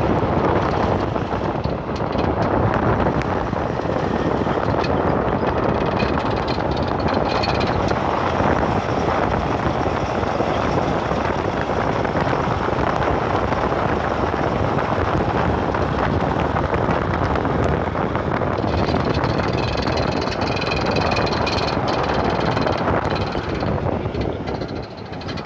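Steady loud mechanical noise throughout, with a faint high squeak that comes and goes, clearest about six to eight seconds in and again from about nineteen to twenty-three seconds in. The squeak is one whose cause is not known.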